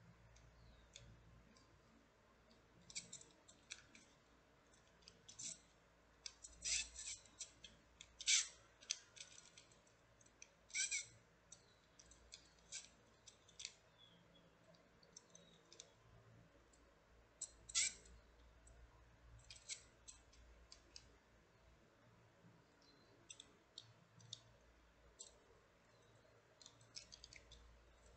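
Plastic macaron rotating-and-sliding bead puzzle ball being twisted and slid by hand: irregular sharp plastic clicks, some in quick clusters, as its parts turn and snap into place.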